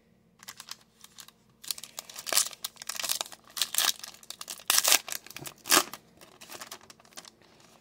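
Foil-lined trading card pack being torn open and crinkled by hand: a run of sharp crackling tears and rustles, loudest about five to six seconds in, then dying down.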